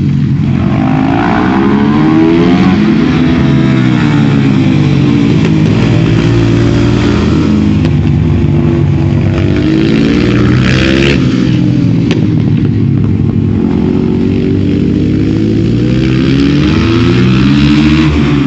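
Supermoto motorcycle engine at full load, its pitch climbing and dropping again and again as it accelerates, shifts and slows through corners.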